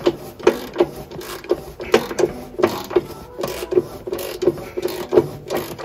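Hand ratchet clicking in short bursts, about three a second, as it is swung back and forth on a socket to unscrew a very tight exhaust NOx sensor.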